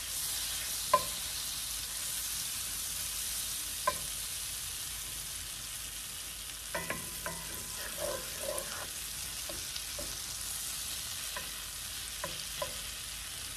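Butter melting and sizzling in a cast iron skillet, a steady fine hiss. A wooden spatula pushing the butter cubes around the pan gives a few sharp ticks and scrapes: one about a second in, one near four seconds, a short cluster past the middle, and two more near the end.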